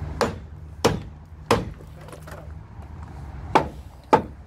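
Lump hammer striking the wooden frame of a fairground ride section, five sharp blows: three about two-thirds of a second apart, a pause of about two seconds, then two more close together.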